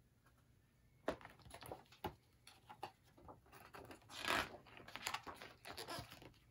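Pages of a picture book being turned by hand: a couple of light taps as the book is handled, then paper rustling, with the loudest swish of a turning page about four seconds in.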